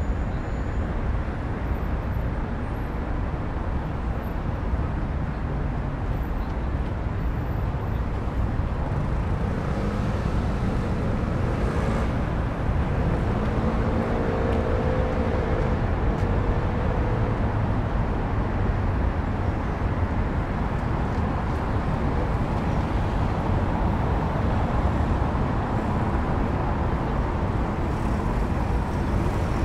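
Steady low rumble of road traffic, a city street ambience. One engine note stands out for a few seconds about halfway through.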